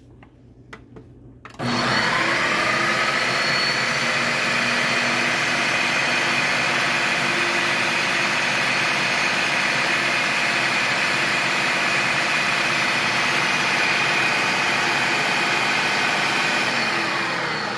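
Countertop food processor: a few clicks, then about a second and a half in the motor spins up with a rising whine and runs steadily as the blade chops avocado into guacamole, winding down with a falling pitch near the end.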